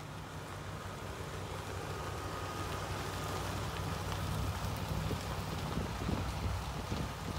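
1979 Chevrolet C70 truck engine idling steadily, growing louder as it is approached, under a hiss of wind noise on the microphone.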